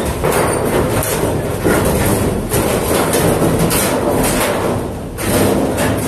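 A Yanmar SV18 mini excavator's diesel engine running while its arm tips a steel container, with a continuous rattling clatter of broken plaster and masonry rubble pouring out and striking the container and floor. The clatter dips briefly about five seconds in, then comes back.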